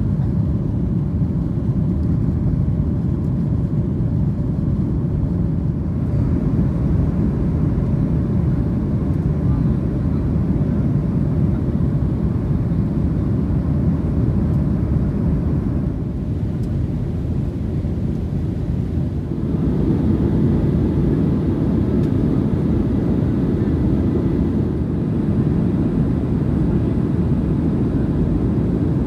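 Steady roar inside the cabin of a Boeing 737-900ER climbing after takeoff: its CFM56-7B engines and the rushing air, heard from a window seat behind the wing. The roar grows a little louder and fuller about two-thirds of the way through.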